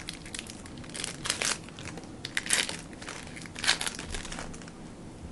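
Crinkling and rustling as a pack of trading cards and its wrapper are handled, with three louder crinkles about a second apart.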